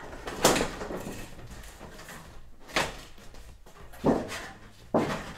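Thin sheet-metal interior wall panels of a school bus being pulled and pried loose by hand: four loud rattling bangs of flexing metal, about half a second in, near three seconds, at four and at five seconds.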